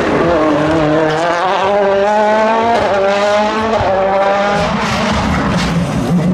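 Rally car engine at full throttle, its note climbing and dropping back through several quick upshifts as the car accelerates down the stage.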